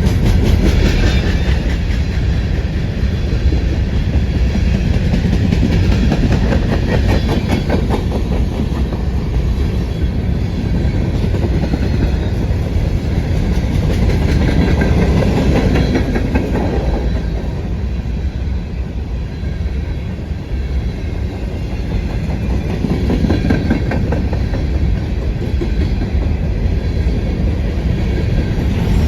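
CSX grain train's covered hopper cars rolling past close by: a loud, steady rumble with the clickety-clack of wheels passing over the rail joints.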